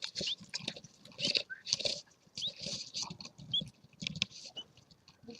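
Baby birds peeping: about five short, thin, upward-sliding chirps, roughly a second apart, amid repeated brief bursts of scratchy noise.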